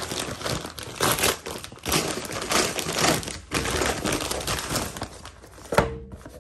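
Brown paper shipping bag crinkling and rustling as it is handled and a cardboard box is pulled out of it. Near the end comes a single sharp knock with a short ring as the box is set down on the glass tabletop.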